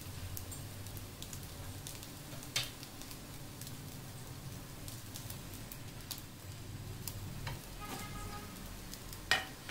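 Egg-dipped bread slice frying in ghee in a pan, sizzling steadily with scattered small pops. A sharp knock comes about two and a half seconds in, and a louder one near the end.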